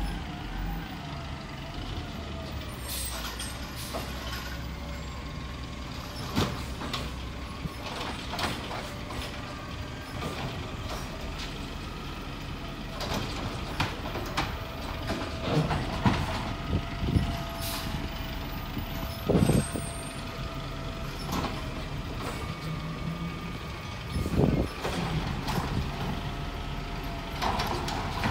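CCC cab-over garbage truck with a Wayne Curbtender body collecting trash at the curb: the engine runs under a steady whine, with a series of knocks and bangs as the lifting arm handles carts, the loudest a little past halfway and near the end.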